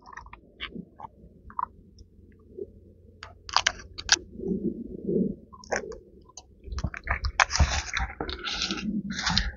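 Veiled polypore mushrooms being plucked off pine bark by hand: scattered small snaps and clicks with light rustling. From about seven seconds in the handling turns to louder, denser rustling and crunching.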